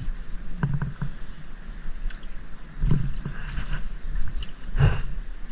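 River water sloshing and splashing around people wading chest-deep, with a few sharper splashes about three seconds in and again near the end.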